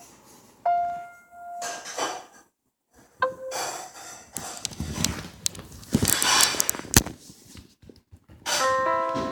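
A few short held tones, then rubbing and scraping handling noise with a sharp knock, and piano music starting near the end.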